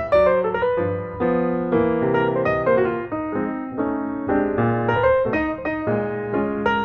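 Piano music: a keyboard tune of quickly changing notes played over chords.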